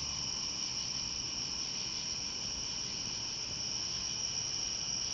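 A steady, high-pitched chorus of crickets and other night insects singing, with no breaks.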